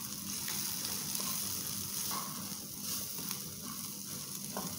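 Chopped onion, garlic and green chillies sizzling in oil in a non-stick frying pan, stirred with a spatula, with a few light taps of the spatula against the pan.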